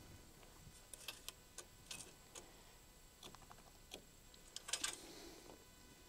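Faint, scattered light taps and clicks of hand work on a wooden door frame as its boards are marked out with a pencil. There is a slightly louder clatter and rustle about five seconds in.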